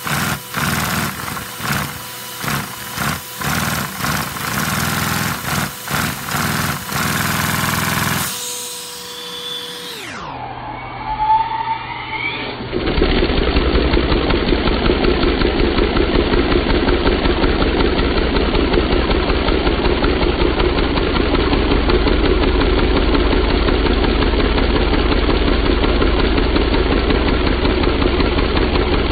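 A LEGO vacuum-powered inline-four engine, run by vacuum cleaner suction through a hose, clatters in quick regular beats with a steady hum under it while a hand holds its wheel back. About ten seconds in the pitch drops and the sound turns duller and denser: the engine's running slowed down for slow motion.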